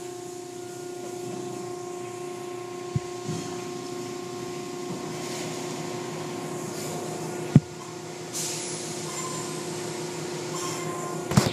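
Automatic tunnel car wash running: a steady motor hum with water spraying and cloth curtains swishing over a car. A sharp knock comes about three seconds in, a louder one about seven and a half seconds in, and a burst of knocks at the very end.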